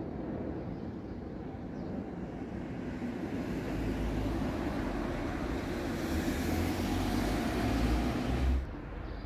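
A motor vehicle approaching, its engine rumble and road noise building for several seconds, then cutting off abruptly near the end.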